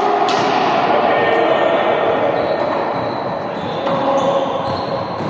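Balls bouncing on a hard court in a reverberant sports hall, over a busy steady din of players moving and calling during a training drill.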